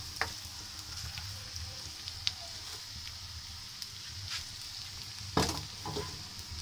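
Sliced onions sizzling in hot oil in a wok as they are half-fried, with a steady hiss. A wooden spatula stirs and clicks against the pan now and then, most loudly about five and a half seconds in.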